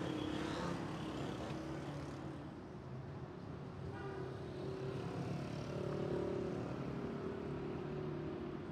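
Street traffic ambience: a steady wash of engine and road noise, with a brief higher-pitched sound about four seconds in.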